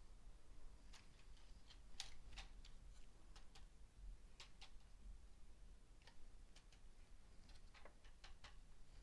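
Faint, irregular clicks and taps of plastic LEGO Technic pieces being handled and pressed together, a dozen or so scattered through the stretch, over a faint low hum.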